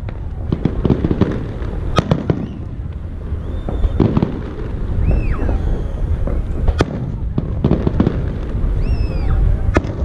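Aerial fireworks display: a steady rolling rumble of shell bursts and crackling, with several sharp bangs a couple of seconds apart and a few short high whistling tones.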